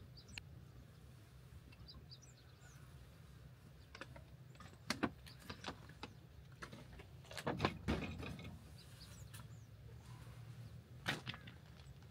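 Knocks and rattles from a telescopic ladder as a person climbs down it from a rooftop tent, loudest in a cluster about two-thirds of the way through, with a few birds chirping.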